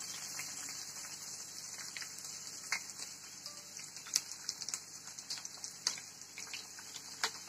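Chopped onions sizzling in a wok of hot groundnut oil just after being tipped in: a faint, steady hiss with scattered crackles and pops.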